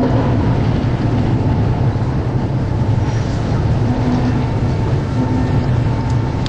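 Steady rumbling ambience of an underground metro station with a train at the platform: a loud, even low roar with faint humming tones coming and going.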